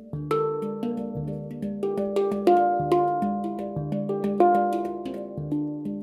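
Handpan (hang drum) being played: a flowing run of struck notes, several a second, each ringing on under the next, swelling louder just after the start.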